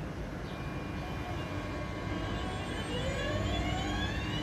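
Siemens Desiro class 460 electric multiple unit approaching, with a steady low rumble; about halfway through, a whine of several tones from its traction motors begins rising in pitch.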